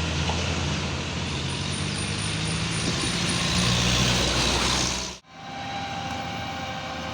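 A bus driving past close by: engine hum and road noise that build slightly to a peak about four seconds in. About five seconds in it cuts off suddenly, leaving a quieter, steady traffic hum.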